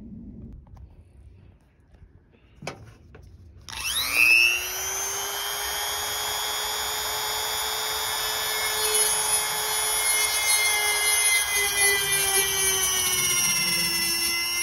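Handheld rotary tool with a cutoff wheel starting up a little under four seconds in, its whine rising quickly to a steady high pitch as the wheel cuts into the hard plastic mounting bracket of a top-box armrest. The pitch sags slightly near the end.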